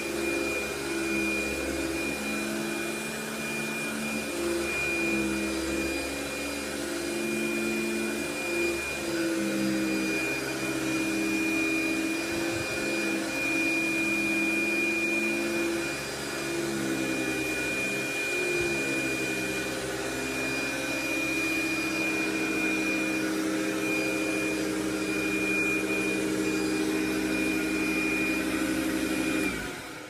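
Eureka Rotomatic Power Team 1743A canister vacuum cleaner running with its power head on carpet: a steady motor hum with a high whine, its pitch shifting slightly as the nozzle is worked back and forth. It cuts off just before the end.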